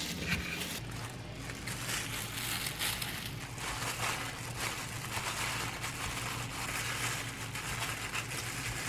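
Disposable plastic gloves crinkling, with soft rustles and taps as gimbap slices are picked up and set into a plastic lunch box. It opens with a knife slicing through gimbap on a wooden cutting board.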